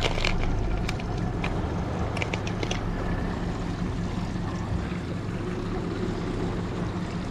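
Steady low hum with wind and water noise on a boat, with a few light clicks of fishing tackle being handled in the first three seconds.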